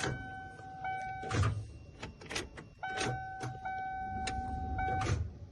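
A 1994 Ford E350 van's dashboard warning buzzer sounding a steady tone twice, first for about a second and a half, then for about two seconds, among scattered clicks from the ignition as the key is tried. The engine does not start on the jumper cables, which is taken as a sign that the van needs a battery.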